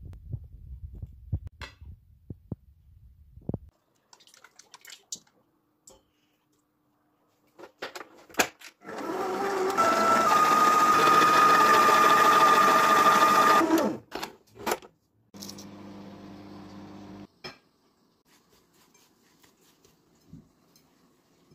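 Electric stand mixer running with its wire whisk beating cream in the bowl, a steady motor whir that stops suddenly after about four and a half seconds. Scattered clicks and knocks come before it, and a shorter, quieter steady hum follows.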